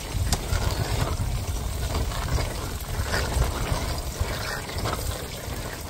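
Wind buffeting the microphone: a steady, gusting low rumble with a hiss over it.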